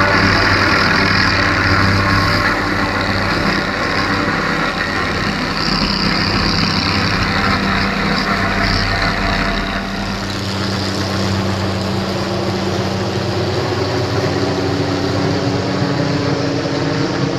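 MD 500 helicopter's turbine engine and rotor running steadily. About ten seconds in, the deep rumble drops away and the sound thins.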